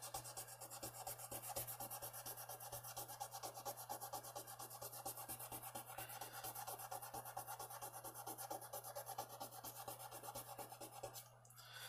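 A small piece of sandpaper rubbed by hand on a slipjoint pocketknife's metal in quick, short back-and-forth strokes, about five a second, stopping shortly before the end.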